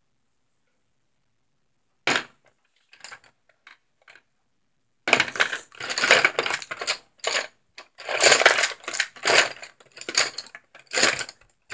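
Paintbrush scrubbing on canvas in short scratchy strokes, after a sharp click and a few faint taps.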